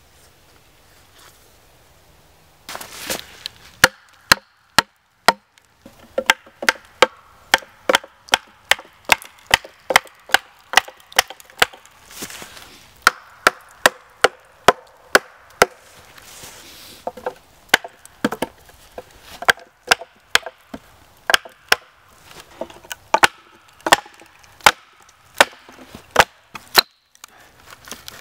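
A wooden baton striking a knife and wooden wedges to split a pole lengthwise, in a long run of sharp wooden knocks at about two a second with a few short pauses.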